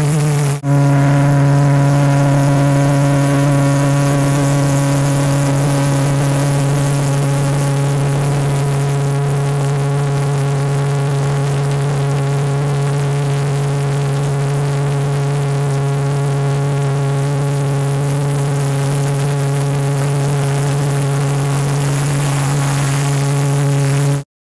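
Homebuilt propane-fuelled Gluhareff-type pressure jet engine, sheet metal with no moving parts, running flat out on a go-kart. It gives a loud, steady, droning tone with overtones and a hiss on top. It dips briefly about half a second in and cuts off abruptly near the end.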